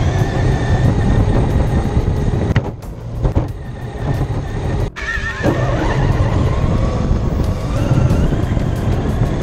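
Onboard sound of a Traxxas X-Maxx electric RC monster truck driving over grass. The motor's whine rises and falls with the throttle over a heavy rumble of bumps and wind on the truck-mounted camera, dropping briefly twice.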